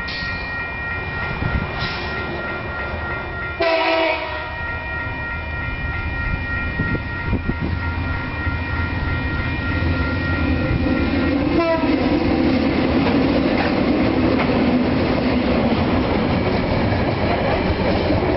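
TasRail diesel locomotives TR03 and TR10 hauling a freight train past at close range, their engines running with a steady whine that stops about two-thirds of the way through. A short horn blast sounds about four seconds in. Container wagons then roll by, the wheels on the rails growing louder.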